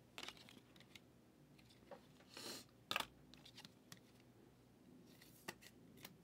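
Quiet handling of trading cards and plastic card holders: faint scattered clicks, a brief sliding rustle about two and a half seconds in, then two sharp clicks.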